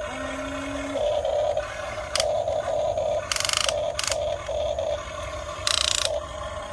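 Radio-controlled excavator's small electric motors whining in short on-off bursts as its functions are worked. Four brief, harsher buzzing bursts come from about two seconds in, the loudest just after three seconds and near six seconds.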